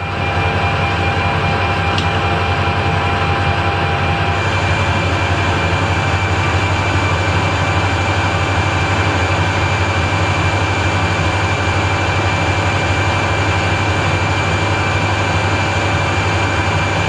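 Metal lathe starting up and running steadily, with a low motor hum and a steady high gear whine, while it turns down a 50 mm steel bar. A hiss of the cut joins in about four seconds in.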